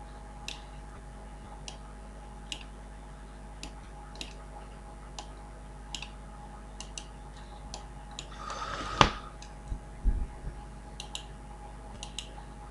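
Faint, irregularly spaced clicks, about one or two a second, typical of a computer mouse being clicked. About nine seconds in there is a short rustle ending in a louder knock, followed by a few dull thumps.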